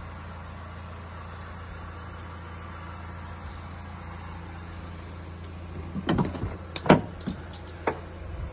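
Honda CR-V's 2.2 i-CTDi four-cylinder diesel idling steadily. Near the end, a quick run of clicks and knocks as the rear door's latch is released and the door swung open.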